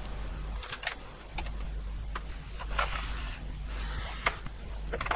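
A vintage NCR desktop computer is being handled and turned around on a workbench: a few sharp clicks and knocks, and several short scrapes as the machine slides across the bench surface, over a steady low hum.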